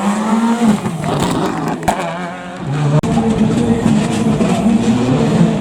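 Rally car engine running hard at high revs, its pitch climbing and dropping with gear changes. A sharp crack comes about two seconds in, and about three seconds in the sound breaks off abruptly and returns as a steady high-revving engine note.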